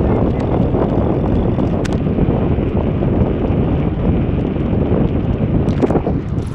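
Wind buffeting the microphone of a camera carried on a moving bicycle, a steady loud rumbling rush, with a single sharp click about two seconds in.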